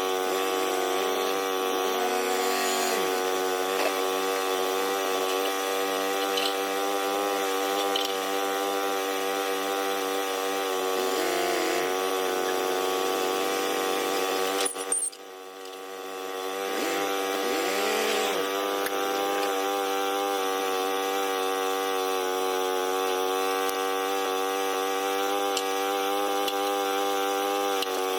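Small sawmill running steadily as it saws through a log. About halfway through, the sound drops off suddenly and then builds back up over two or three seconds.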